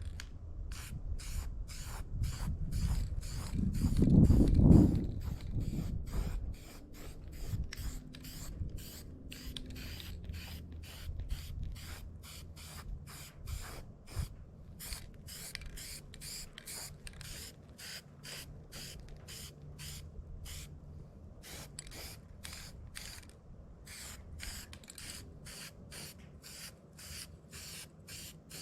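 An aerosol spray paint can makes a steady run of short, sharp high-pitched bursts, about two a second. A low rumble swells and fades around four to five seconds in.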